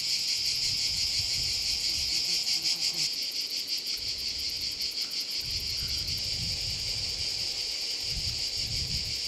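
Insect chorus shrilling steadily at a high pitch, with a fine rapid pulse; a low rumble comes and goes underneath.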